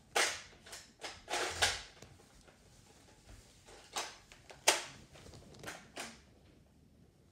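A handful of short rustles and soft knocks, spaced irregularly about a second apart, from someone moving about and handling things close to the camera.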